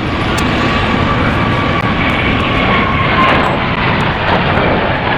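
Airplane engine running: a steady rushing noise with faint whining tones above it.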